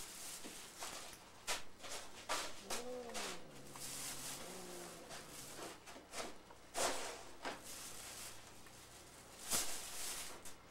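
A cat gives one short meow about three seconds in, its pitch rising and falling, with a fainter call a second or so later. Around it run scattered rustles and knocks from a plastic bag being handled, the loudest about seven and nine and a half seconds in.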